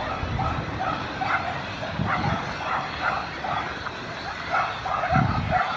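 An animal calling in short, repeated yapping calls, about two to three a second, like a small dog barking. A low rumble swells briefly about five seconds in.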